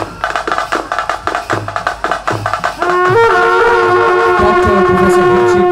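Ceremonial music: quick drum strokes, then about three seconds in a loud wind instrument comes in, holding one long note over the drumming.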